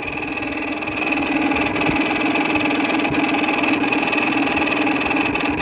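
A 2000 Whirlpool air conditioner running with a loud, steady hum and a high whine from its dry, worn fan-motor bearings, which the owner says need oil.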